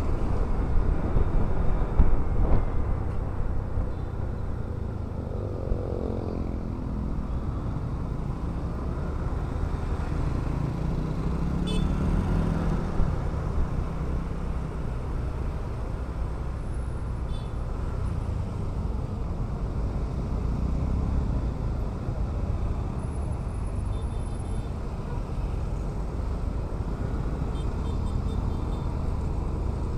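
Riding a Honda scooter through city traffic: steady wind rush over the microphone and road noise, with engine sound rising and falling in pitch a couple of times.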